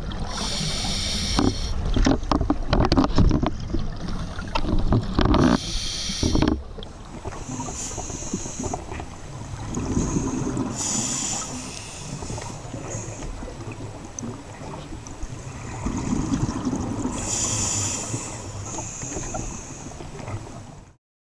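A scuba diver's regulator breathing and exhaled bubbles, picked up underwater by the camera's microphone: a continuous noisy rumble with hissing surges every few seconds. The sound cuts off shortly before the end.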